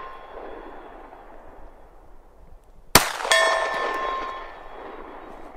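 A single shot from a Walther PDP Pro SD pistol, followed about a third of a second later by a ringing clang as the bullet hits a steel target, the ring dying away over a second or so. At the start, the ring of the previous hit fades out.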